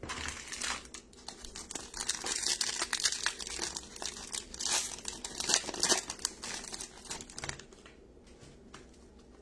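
Silver foil wrapper of a baseball card pack crinkling as it is handled and torn open. The crackle dies down about eight seconds in.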